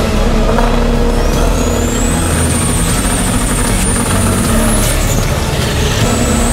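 Turbocharged Honda Civic drag car's engine running loud, with a high turbo whistle that climbs about a second in and then holds steady.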